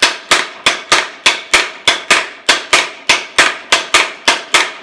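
Large wooden matraca with three mallets (matracón) being played, its mallets striking the wood in a steady run of sharp wooden knocks, about four a second.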